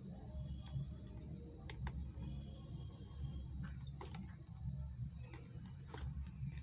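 Steady high-pitched chirring of crickets, over a low hum, with a few faint small clicks.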